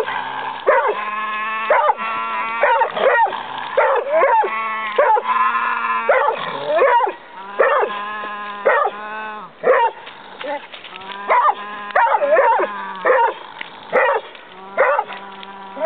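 Hounds baying over and over: long, drawn-out calls that bend in pitch, coming one after another with short gaps. The calls grow quieter after about ten seconds.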